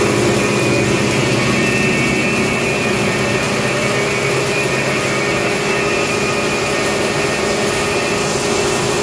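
Heavy-duty 10 hp pulverizer with its cyclone blower running steadily, grinding grain fed from the hopper: a loud, steady rushing noise with a constant hum and a high whine.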